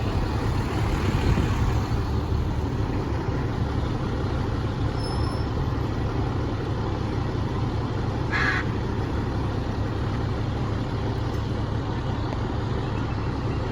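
Large truck engine idling steadily with a low rumble, most likely the fire engine standing by; a brief higher sound stands out about eight seconds in.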